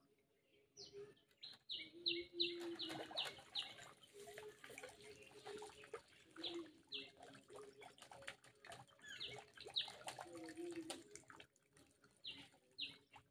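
Small birds calling in runs of short, falling chirps, over lower held calls. Water patters and splashes off a fishing lift net as it is hauled up out of the water.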